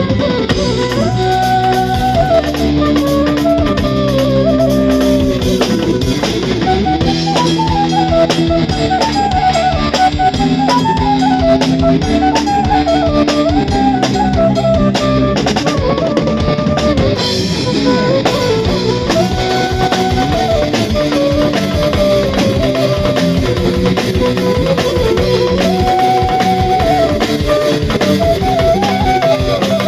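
Live band sound check: a flute plays a melody with bends and glides over a drum kit keeping a steady beat, with guitar and bass backing.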